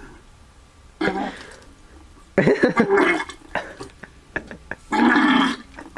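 A person gurgling in the throat at a Slurpee cup pressed to his mouth while forcing down the slushy drink, in three loud bursts about one, two and a half, and five seconds in.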